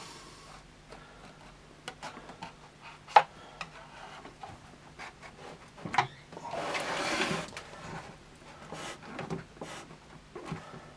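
Knife blade and fingers scraping and clicking along the edge of a subwoofer's grille frame, prying at the clips that hold it on. Scattered small clicks, with a sharp click about three seconds in that is the loudest, another near six seconds, and a short rubbing hiss just after it.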